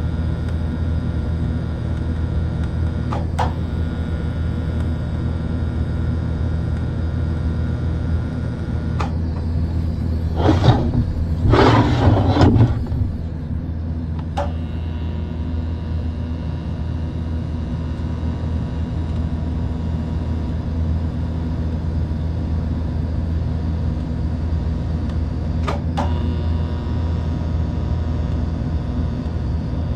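Steady hum of workshop machinery with a low even drone. About ten seconds in comes a short, loud burst of noisy hissing and crackling lasting two to three seconds. A few faint clicks occur here and there.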